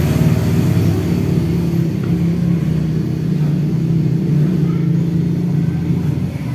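An engine idling steadily, a low even sound with no revving.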